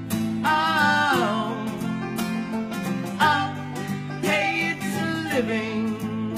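Acoustic folk band playing a song: banjo picking and acoustic guitar strumming with a ukulele, under sung vocal phrases.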